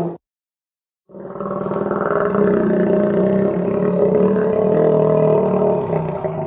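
Custom crocodile roar sound effect: a long, steady, pitched roar with many layered tones, starting about a second in after a moment of silence.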